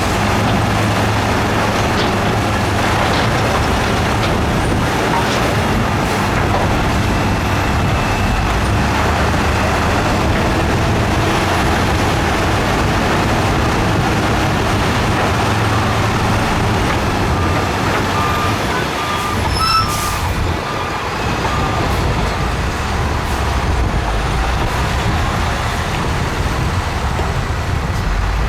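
Heavy diesel earthmoving machinery, a wheel loader, bulldozer and dump trucks, running steadily under load. About two-thirds of the way through, a short series of reversing-alarm beeps sounds, and there is a sharp sudden hiss or clank.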